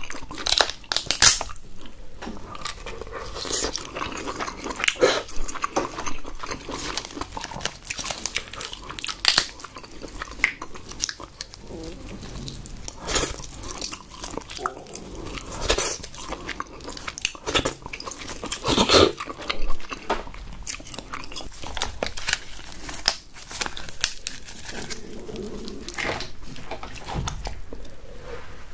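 Close-miked eating: wet chewing and mouth smacks on king crab meat and saucy rice cakes, in irregular sharp clicks, with handling noise as gloved fingers pull crab meat apart.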